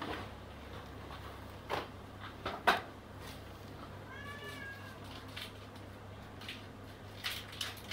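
One short, high animal cry about four seconds in, rising and then falling in pitch, among a few sharp knocks and taps, the loudest just under three seconds in.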